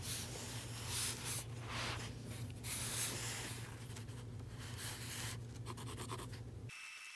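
Pencil lead scratching across sketchbook paper in irregular short strokes, over a low steady hum. The sound cuts off abruptly near the end.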